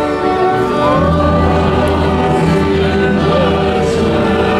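Choir singing long held chords, with a fuller, deeper chord coming in about a second in.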